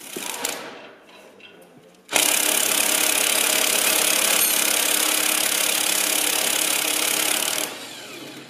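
Corded electric impact wrench hammering on a bolt of the tank's steel chassis for about five and a half seconds, starting about two seconds in and stopping near the end, after a short metallic clatter at the start.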